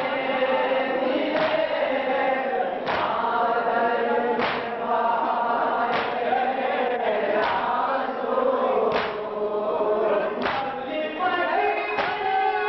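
Group of men chanting a nauha (mourning lament) together, with a sharp beat about every one and a half seconds from the mourners striking their chests in unison (matam).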